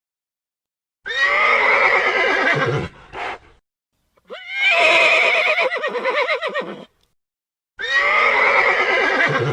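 Horse whinnying three times, each a loud quavering call lasting about two seconds, separated by silent gaps.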